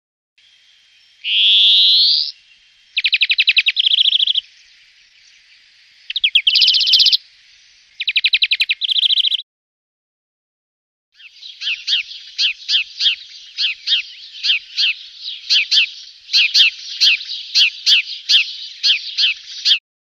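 European greenfinch singing: a rising wheeze, then three bursts of fast trills. After a short pause, a tree sparrow gives a long series of chirps, about two to three a second.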